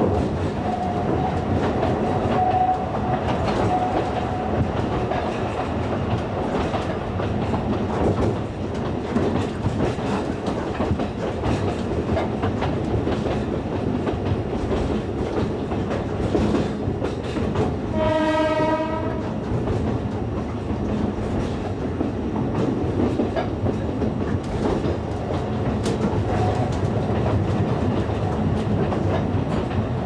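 Alishan Forest Railway train running through the forest, with steady rolling noise and the clatter of its wheels on the narrow-gauge track. About eighteen seconds in, the train's horn sounds once for about a second and a half.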